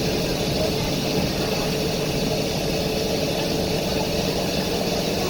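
Steady engine and running noise heard from inside a Volvo B9TL double-decker bus, with a steady hum and an even hiss that do not change, recorded through a damaged phone microphone.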